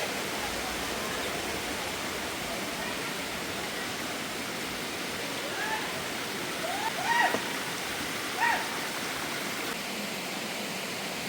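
Steady rush of flowing water, like a stream or waterfall, with a few short high calls about two-thirds of the way through.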